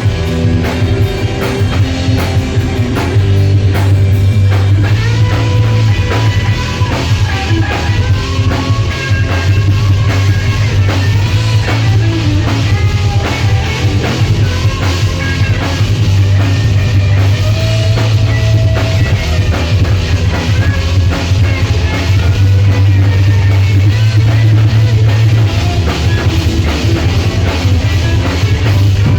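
Rock band playing live: drum kit, electric guitar and a heavy, steady bass line.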